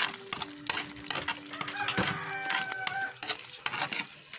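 A spoon stirring thick simmering spaghetti sauce in a pot, with irregular clinks and scrapes against the pan. Held, steady-pitched tones sound in the background during the first three seconds.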